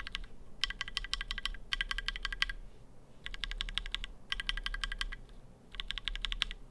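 Custom 60% mechanical keyboard with Gateron Milky Yellow switches in an aluminum Tofu60 case, typed in six quick bursts of rapid keystrokes with short pauses between. A metallic ping rings under the clicks, the sound of keys pinging off the aluminum in the unmodded board, before any foam or tape mod.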